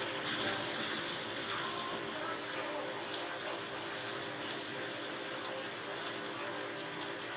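A small machine running steadily, with a steady mechanical whirr and a higher hiss that come up just after the start.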